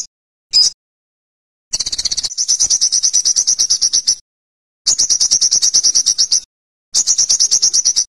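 Olive-backed sunbird singing. A single short high chirp comes first, then three fast trills of repeated high notes, about nine a second, each lasting one and a half to two and a half seconds with short pauses between.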